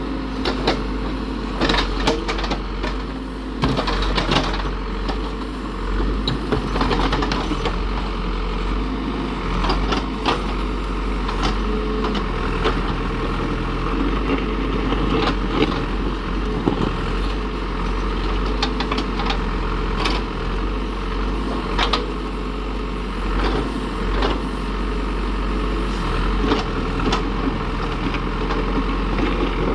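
Diesel engine of a heavy construction machine running steadily, with frequent short knocks and clanks.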